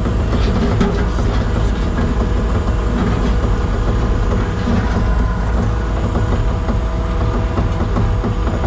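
Skid steer's engine running steadily.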